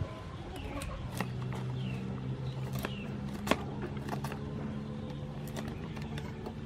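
A kitchen knife scraping and clicking on pumpkin rind as the pumpkin is peeled by hand, in irregular sharp clicks, the loudest about three and a half seconds in. A steady low hum and a few bird chirps sit underneath.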